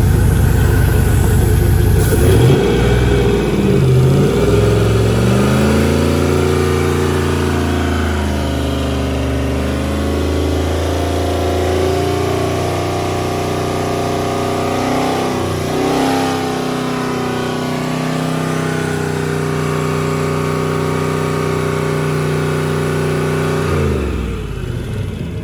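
Freshly overhauled Mercruiser 8.1 L (496) Horizon big-block V8 running, revved up and back down a few seconds in and briefly again midway. Near the end its pitch drops away as it winds down.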